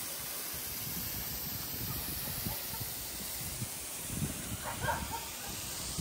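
Steady hiss of a thin waterfall spraying down a mossy rock face onto stone.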